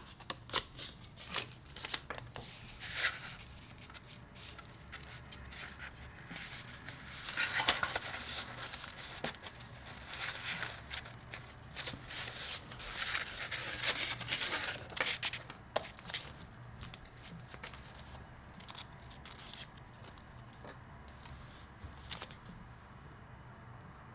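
Paper packaging being handled: rustling and crinkling with small taps and clicks as a bookmark charm is pulled from its paper card and a notebook is opened. The loudest rustling comes about a third of the way in and again a little past the middle, and it quietens toward the end.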